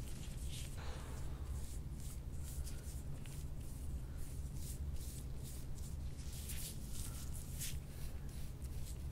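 Gloved fingertips scratching and rubbing through short hair on a scalp as the scalp fascia is worked, a run of brief, irregular scratchy rustles over a steady low hum.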